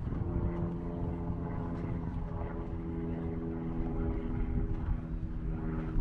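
A steady engine drone whose pitch shifts slightly about two seconds in.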